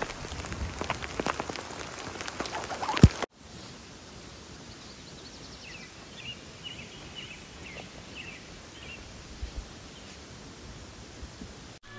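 Dense crackling patter of ticks for about three seconds. After a cut comes a quieter steady outdoor background with a bird chirping a quick run of short notes.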